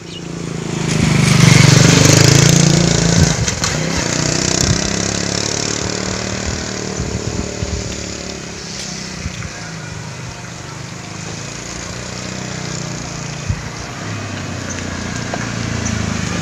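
Small motorcycle engine running: loudest about two seconds in, then a steadier drone that grows again near the end as a motor scooter rides up.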